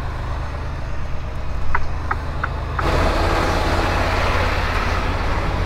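Semi-truck diesel engine idling steadily, with a few light clicks about two seconds in. About three seconds in the sound suddenly gets louder, with a steady hiss over the engine.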